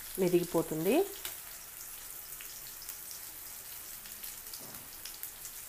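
Green chillies, cumin seeds and tamarind frying in hot oil in a kadai: a steady faint sizzling hiss with scattered small crackles.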